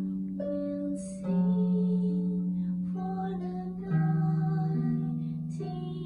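Solo harp played by plucking: low bass notes ring on under a plucked melody, with fresh bass notes struck about a second in and again about four seconds in.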